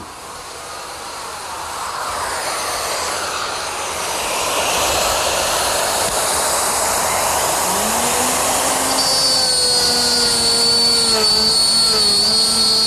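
Shop dust-collection blower running with a steady rushing noise that builds over the first few seconds. About eight seconds in, a plunge router starts with a rising whine and cuts a dado in MDO plywood with a straight bit, its pitch wavering slightly under load.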